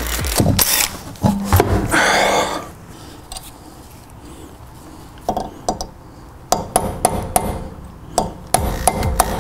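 Hammer striking a punch to stake the new CV axle nut into the axle shaft's groove, locking the nut in place: a series of sharp metallic taps, with a short rushing noise about two seconds in.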